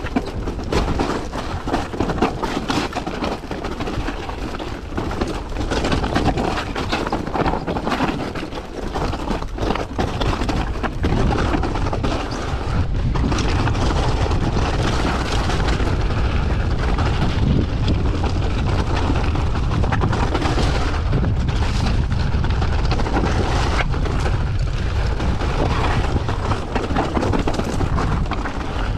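Mountain bike descending a rocky gravel trail at speed: wind buffets the action camera's microphone with a steady low rumble, and the tyres crunch over loose stones while the bike knocks and rattles over rocks. The wind rumble gets heavier and more even about halfway through as the speed picks up.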